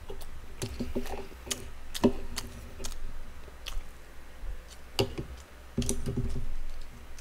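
Close-miked eating: a metal spoon clicking and scraping against a bowl, with wet mouth clicks from chewing, irregular and sharp.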